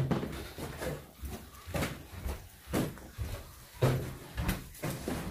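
Footsteps going down a staircase: a dull thump roughly once a second.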